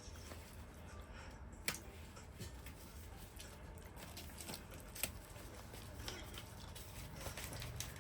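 Eating sounds: quiet chewing with small wet mouth clicks, and a couple of sharper clicks near two and five seconds in.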